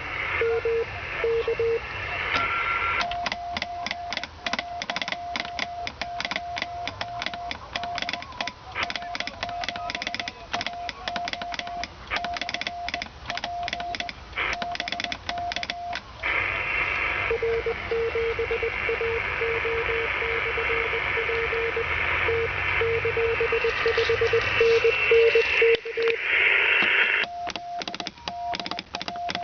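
Amateur radio Morse code (CW) on a shortwave transceiver: keyed tone dots and dashes over band hiss, two stations at different pitches taking turns. A higher-pitched signal sends from a few seconds in, a lower-pitched one answers about halfway, and the higher one returns near the end. Sharp clicking runs along with the higher signal.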